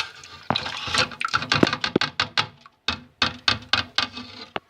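Kitchen utensils clicking and knocking against metal, a quick irregular run of taps and scrapes, as melted butter is emptied from its pan into a blender jar.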